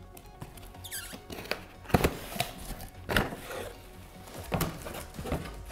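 Cardboard shipping box being opened by hand: rustling and scraping of cardboard flaps, with a few sharp knocks as the flaps are pulled up, over quiet background music.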